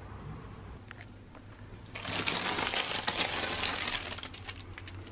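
Clear plastic wrapping crinkling as a pair of packaged hotel slippers is handled, starting suddenly about two seconds in, over a steady low hum.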